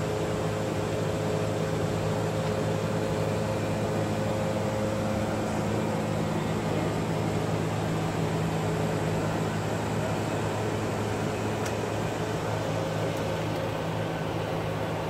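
Steady in-flight noise inside an Airbus A330 cockpit: an even rush of airflow and air conditioning over a low steady hum with a few faint constant tones.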